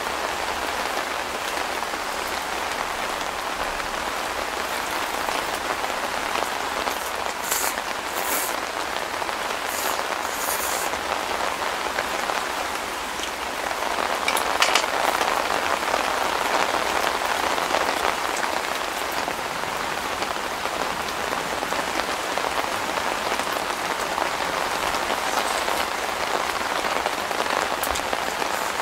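Steady rain falling on a tent shelter's fabric roof, a continuous patter that grows a little heavier about halfway through. A few light clinks sound over it from chopsticks and a lid on a steel pot.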